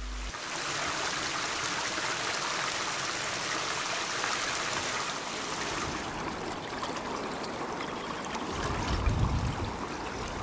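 The River Calder's water running steadily. Some low rumbling comes in over the last two seconds.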